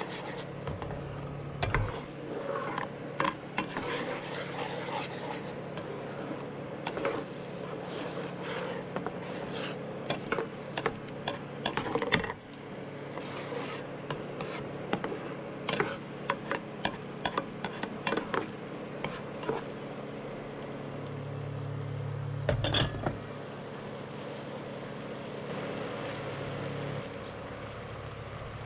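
Plastic spatula scraping and tapping against a nonstick frying pan while a thin sauce is stirred: many short clicks and scrapes through the first two-thirds. A louder knock about 23 seconds in comes over a low hum that swells and then settles in the later part.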